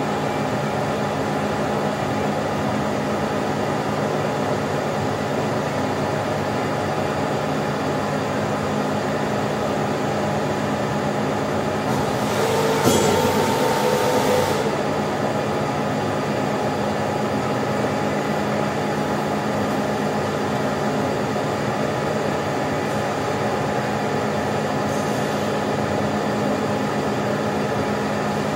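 Hydraulic power unit of a CNTA 3150/16 hydraulic guillotine shear running with a steady hum, with a louder rushing swell lasting about two seconds about halfway through.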